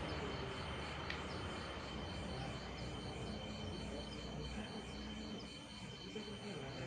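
Night insects, crickets, chirping in a regular repeating pattern over a steady high-pitched drone, with a low background rumble fading away and one sharp click about a second in.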